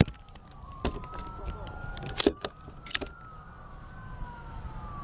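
A police siren wailing in slow rising and falling sweeps, with several sharp clicks or knocks, the loudest right at the start and about two seconds in.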